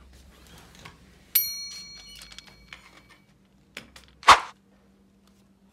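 Light-switch clicks and handling noises as the room is made darker. About a second and a half in comes a ringing metallic ding that fades over a second or so, and a little past four seconds a short, loud swish.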